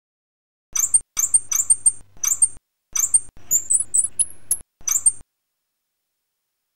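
A run of short, high-pitched squeaks and chirps in quick clusters, several gliding upward in pitch near the middle, each cluster cut in and out sharply over a faint low hum.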